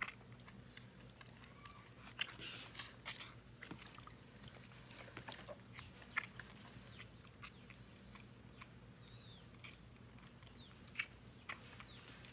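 Jersey heifer calf sucking at a feeding bottle's nipple, with irregular soft clicks. Birds chirp in short falling notes in the background.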